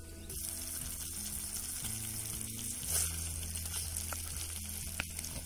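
Stuffed brinjals cooking in a spicy masala gravy in a steel pan over a wood fire: a steady sizzling, bubbling hiss as the gravy boils, with a few light scrapes of a steel spoon stirring.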